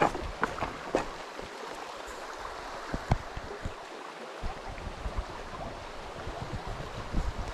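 Shallow rocky stream running over stones in a steady rush, with a few short low knocks near the microphone.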